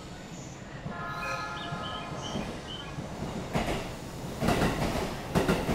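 Railway wheels rolling over rail joints, a clattering clack that grows louder through the second half. About a second in comes a steady squeal of several tones lasting about two seconds.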